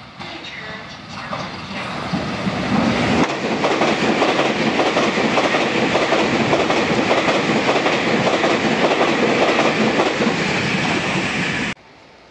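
Taiwan Railway train passing at high speed: the sound builds over the first few seconds into a loud, steady rush of wheels on rail with rapid clattering, then cuts off suddenly near the end.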